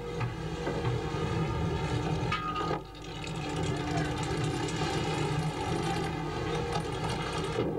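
Boat engine running steadily under a rushing noise of wind and sea, cutting off abruptly near the end.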